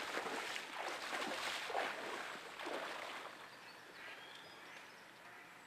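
Waders sloshing through shallow flood water as a person wades, about one splashing step a second, fading after about three seconds.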